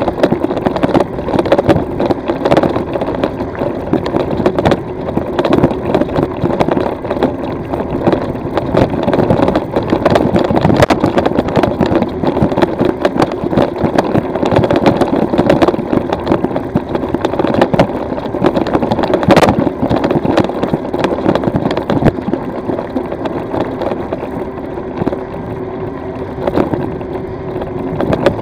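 Continuous rattling and crunching of an e-bike riding over a loose stone and gravel track, picked up through a camera mounted on the bike, with a steady mechanical hum beneath the clatter.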